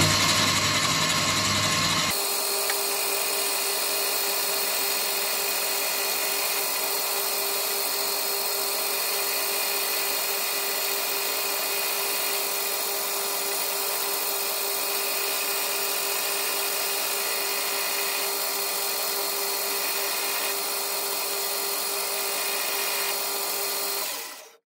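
Boxford BUD lathe running while turning down the outside diameter of a brass workpiece: a steady machine hum with several constant tones. The sound changes abruptly about two seconds in and fades out near the end.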